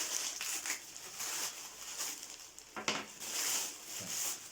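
Packaging wrapped around a vacuum cleaner's flex being cut and pulled off: repeated rustling and crinkling, with a sharp snap or click about three seconds in.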